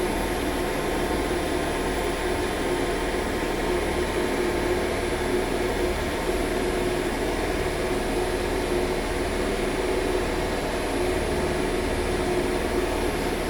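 Elevator hoist machine running under power with its brake released, moving the car: a steady machine hum with a few held tones that doesn't change.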